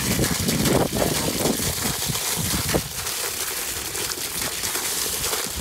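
Small hailstones coming down hard in a storm: a dense crackle of many small hits, with wind on the microphone. It is heaviest in the first three seconds, then eases a little.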